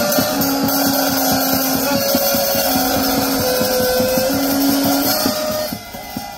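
Small guitar amplifier giving out a loud, harsh, distorted noise: a dense, fast pulsing with a few held notes over it. It drops in level near the end.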